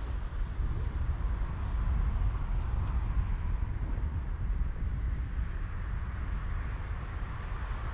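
Steady rolling noise of a road bike riding along an asphalt path, with low wind rumble on the microphone and a general outdoor hum that swells slightly around the middle.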